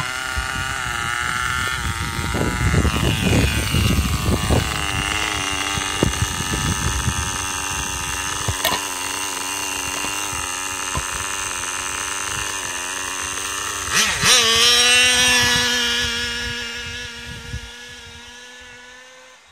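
Small nitro engine of a 1/10 RC touring car idling steadily, with a few low thumps in the first seconds. About 14 seconds in, it is revved sharply as the car pulls away, and its high, steady note fades as the car drives off.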